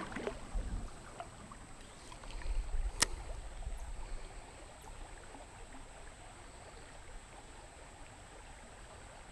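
Faint flow of a shallow creek, with one sharp click about three seconds in.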